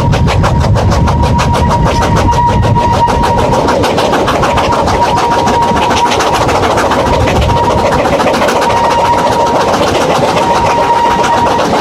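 Narrow-gauge steam locomotive working a train, heard from the carriages behind: a fast, even beat of exhaust chuffs over running rumble, with a steady high squeal from the train on the curve.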